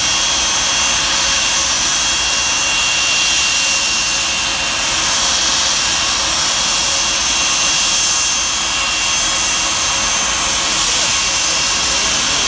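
Boeing 757-200's jet engines running at taxi power: a steady, loud rushing hiss with a high-pitched whine on top, holding level throughout.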